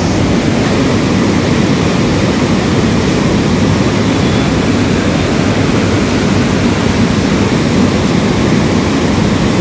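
A river in monsoon flood, muddy and swollen, rushing and cascading down a stone-walled channel: a loud, steady roar of water.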